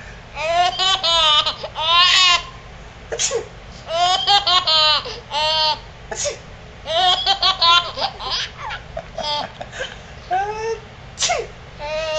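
A small child laughing in repeated high-pitched bursts, about one every second.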